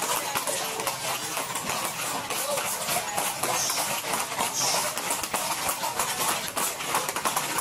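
Hooves of many horses clattering on a paved street in a dense, uneven patter, with voices in the background.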